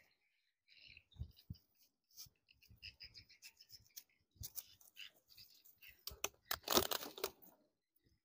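Dry leaves and twigs crackling and rustling as baby monkeys scramble about, in scattered clicks and snaps with a louder stretch of dense rustling about seven seconds in. A few short, faint high chirps come in the first few seconds.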